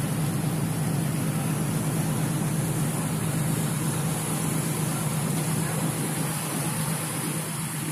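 Steady low drone of a passenger ship's diesel engines, heard on deck while the ship is underway, with a steady high hiss over it.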